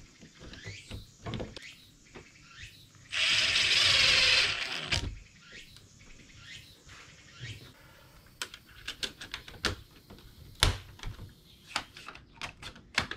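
Fitting an electrical wall outlet into a wooden bed frame: a loud burst of noise lasting about two seconds, a few seconds in, then a run of short clicks and taps as the parts are handled and fastened.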